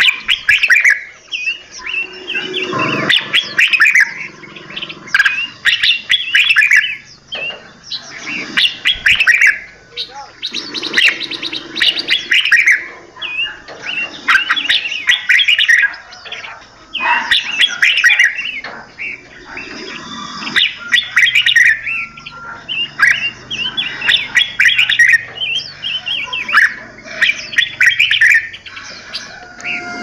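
Several caged songbirds singing and chirping at once, in busy overlapping phrases and calls that come in bursts with short pauses between them.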